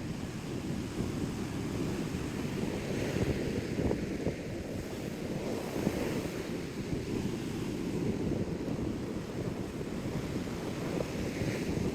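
Wind buffeting the microphone over the steady wash of surf on the shore, an uneven low rumble that rises and falls.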